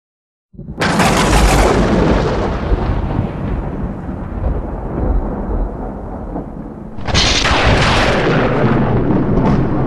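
Intro sound effect of loud, thunder-like booms with deep rumble: the first hits suddenly about half a second in and slowly fades, and a second one hits about seven seconds in.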